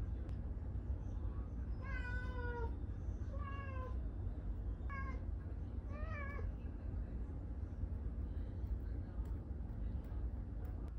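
A domestic cat meowing four times, short calls roughly a second apart starting about two seconds in, the last one rising and falling in pitch, over a steady low rumble.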